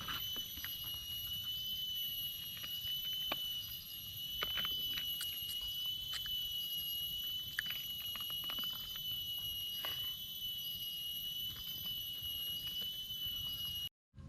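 A steady high-pitched ringing drone, with a fainter chirp repeating about once a second and scattered soft clicks; it cuts off abruptly just before the end.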